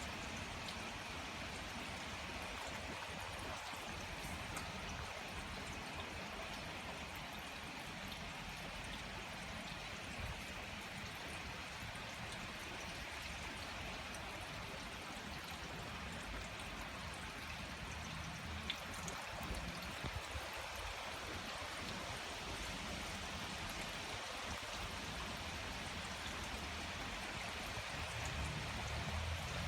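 Strong wind blowing steadily, a continuous rushing hiss, with a low rumble swelling near the end.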